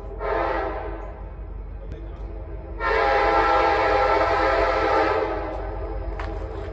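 Air horn of an approaching CSX GE AC4400CW diesel locomotive: a short blast, then a longer, louder blast of about two and a half seconds, over a steady low rumble.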